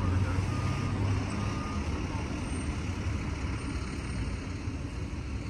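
Steady outdoor street noise with a low engine-like hum, as from an idling vehicle, with two faint high beeps in the first couple of seconds.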